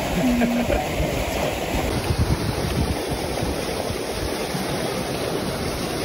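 Wind buffeting the microphone outdoors: a steady rushing noise with an uneven low rumble.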